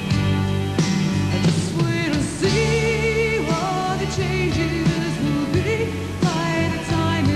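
Folk-rock band playing a song: a woman singing held, wavering notes over guitar, bass and drums.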